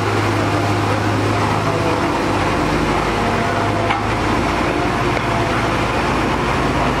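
Heavy road-construction machine's engine running steadily, a constant low hum with no change in pitch.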